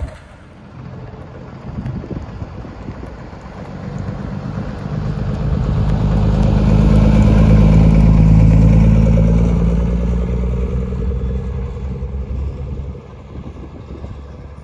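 Heavy truck's diesel engine running as it drives past: a deep, steady engine note that builds to its loudest about halfway through and then fades away.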